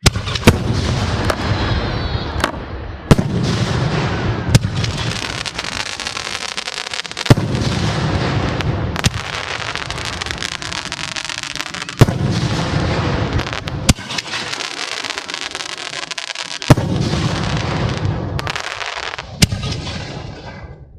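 Professional aerial firework shells going off in rapid succession: a continuous dense barrage of bangs with sharper, louder reports every one to three seconds.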